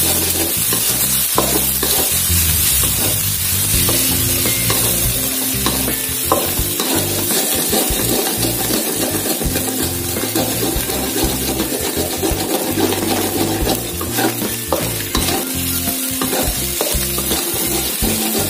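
Sausage, scrambled egg and chopped tomato sizzling in an aluminium wok while a spatula stirs and scrapes through them, with scattered clicks of the spatula against the pan.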